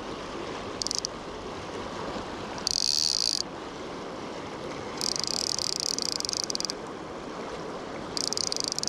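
Fly reel drag clicking in four short runs of rapid high clicks as a hooked fish takes line, over the steady rush of a shallow river riffle.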